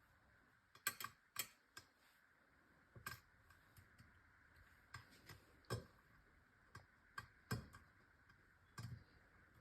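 Faint, irregular light clicks and taps of cooked ziti noodles being placed by hand in rows in a baking pan, about a dozen over the stretch.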